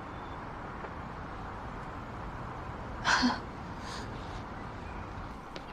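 Steady background hiss with a short, loud breathy exhale about three seconds in, followed by a fainter one about a second later.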